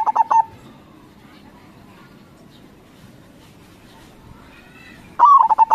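Zebra dove (perkutut) cooing: a burst of quick, stuttering coos ends about half a second in, and another phrase starts near the end. A faint steady background with faint distant chirps fills the gap.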